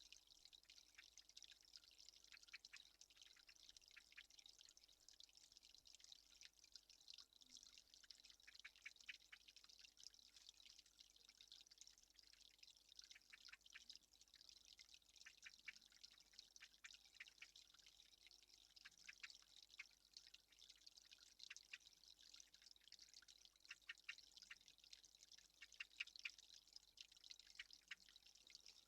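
Faint, irregular clicks and ticks, several a second, over a steady high hiss.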